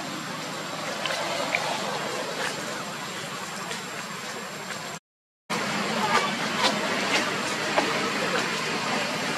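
Dry leaf litter rustling and crackling under macaques' feet, over steady outdoor background noise. The sound cuts out for about half a second at an edit about five seconds in.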